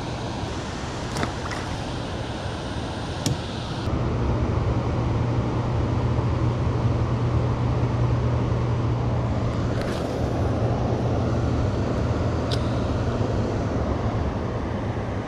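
Steady rumble of a hydroelectric dam's running generators and the water rushing out below them, with a strong low hum. It grows louder about four seconds in. A few light clicks sound over it.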